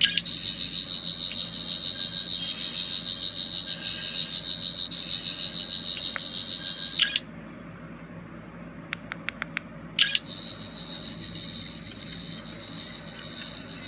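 Toy sonic screwdriver's electronic sound effect: a high, rapidly pulsing whirr that plays for about seven seconds and cuts off. A few quick clicks of its button follow, then it starts again, quieter.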